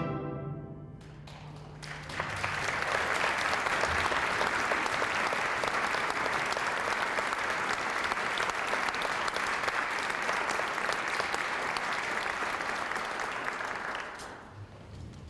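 A high school wind ensemble's final chord dies away, then a concert audience applauds steadily for about twelve seconds before the clapping fades out.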